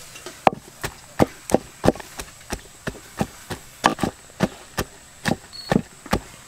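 Blade chopping on wood, a steady run of sharp strikes at about three a second.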